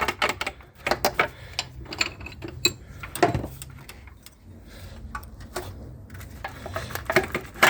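Irregular clicks, taps and light knocks of hard engine parts being handled while a broken timing belt is checked, with a louder knock a little after three seconds.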